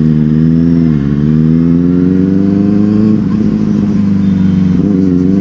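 Benelli TNT 600i's inline-four engine running under way. Its revs dip briefly about a second in, then climb slowly and steadily.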